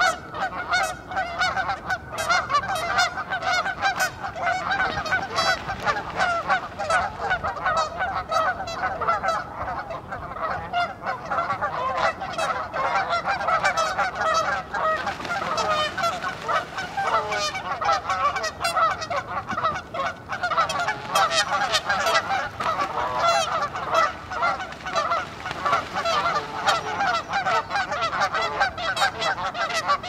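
A flock of geese honking without a break, many loud calls overlapping, as the geese squabble and fight among themselves.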